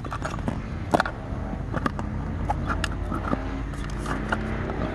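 Electric air pump running with a steady low hum, with several sharp plastic clicks as the valve cap on an inflatable boat's chamber is taken off and the pump nozzle is fitted into the valve.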